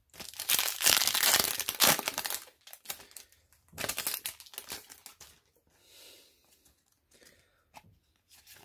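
Foil trading-card booster pack wrapper being torn open and crinkled: a loud crackling for about two and a half seconds, a second shorter crinkle about four seconds in, then faint rustling as the cards are handled.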